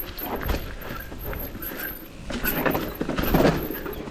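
Mountain bike rolling fast down a rough dirt trail: tyre noise with the bike's chain and parts rattling and clattering, louder over rougher ground from about two and a half seconds in.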